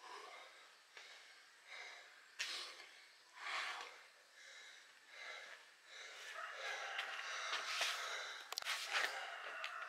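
A person breathing hard and fast, out of breath from exertion between sets of burpees and push-ups, about one breath a second. In the last few seconds the breathing runs together with several sharp knocks.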